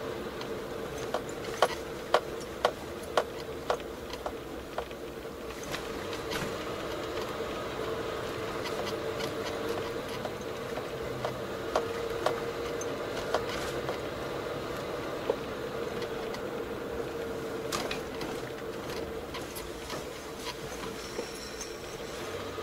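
A car being driven, heard from inside the cabin: a steady engine and road hum. From about a second in comes a run of sharp ticks, about two a second for a few seconds, and scattered clicks follow later.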